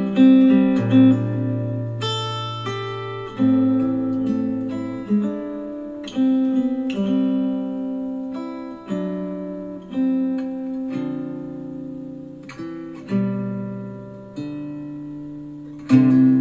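Acoustic guitar music played back through a JBL Flip 6 Bluetooth speaker: slow chords struck about every one to two seconds, each left to ring out.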